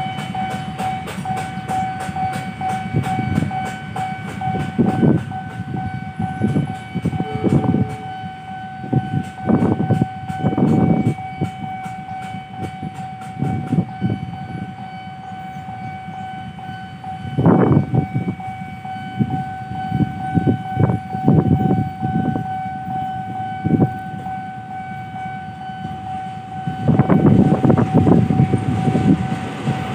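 Railway level-crossing warning signal sounding one steady electronic tone throughout while the barrier is down. Bursts of low rumble come and go over it, the longest near the end.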